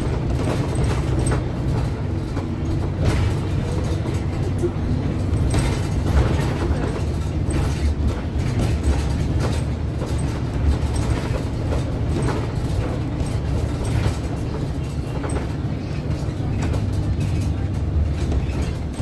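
Public-transport vehicle in motion, heard from inside near the front: a steady low running rumble with frequent short knocks and rattles.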